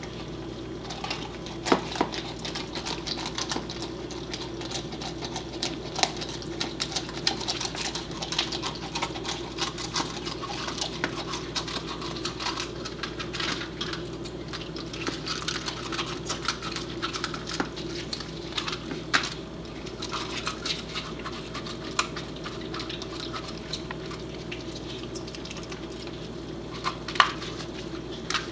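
A corgi working at an egg on the floor: a busy patter of small clicks, taps and scratches from claws, nose and mouth, with a few sharper knocks, the loudest about two seconds in and again near the end, over a steady low hum.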